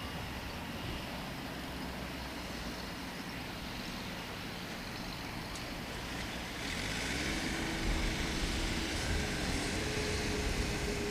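Low rumble of wind on the microphone, then about two-thirds of the way in the GD-006 micro RC airplane's two small electric motors and propellers whine up louder as the throttle is opened, the pitch stepping higher.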